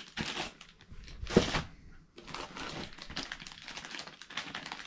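Clear plastic parts bags crinkling and rustling as they are handled, with one sharper crackle about one and a half seconds in.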